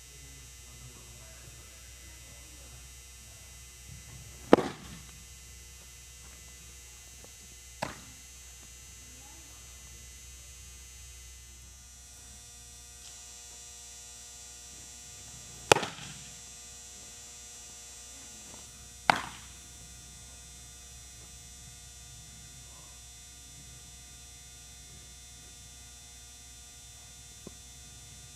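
Pitched baseballs landing with sharp smacks: three loud ones and a fainter one, spread several seconds apart, over a steady low hum.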